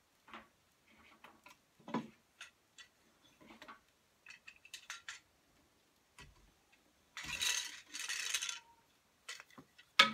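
Wooden rigid heddle loom being worked by hand: a string of light clicks and knocks from the heddles and stick shuttle, two brief swishes about seven to eight and a half seconds in, and a sharper knock near the end.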